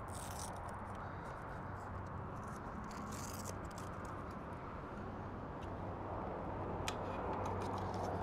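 Faint rustling and a few light clicks of hands fastening a strap and camera mount on an e-bike's rear rack, over a steady low background hum.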